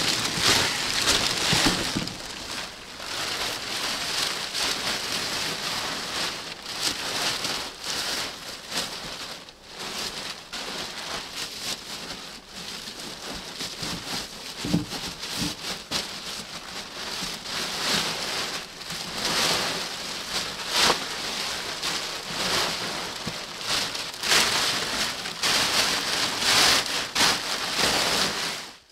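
Plastic tarpaulin rustling and crackling as it is dragged, bunched and folded by hand, rising and falling in waves with the handling.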